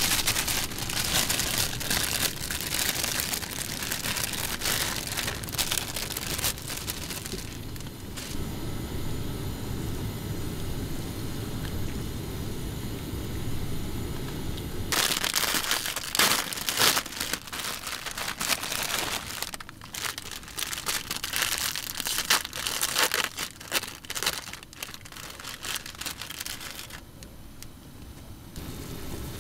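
Plastic food packaging crinkling and rustling in two long stretches. Between them comes a steady low hiss of water boiling in a frying pan on a cassette gas stove.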